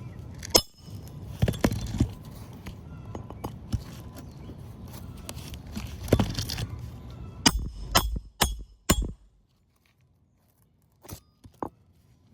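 Sharp metallic knocks of a hammer striking a roof snake to drive a nail under a replacement asphalt shingle, with scraping and handling of the tool between strikes. There is a run of four quick blows about eight seconds in, and two lighter taps near the end.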